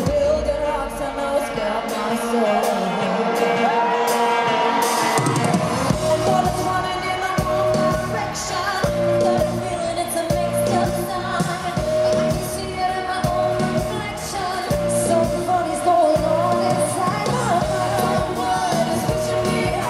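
Live pop music: a female pop group singing over a full band. The bass and drums are out for the first few seconds under the held vocal lines, then the full band comes back in about five seconds in.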